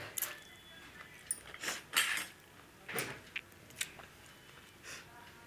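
Close-up eating sounds: a string of short clicks and smacks, mouth noises of chewing by hand mixed with a spoon tapping a small ceramic bowl of gravy.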